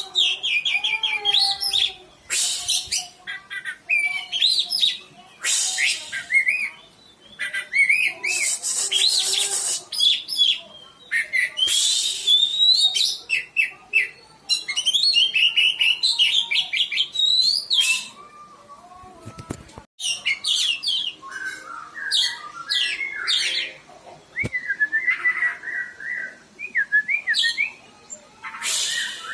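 Oriental magpie-robin singing: fast, varied whistled phrases, broken several times by loud, harsh rasping bursts, with a quieter spell about two-thirds of the way through.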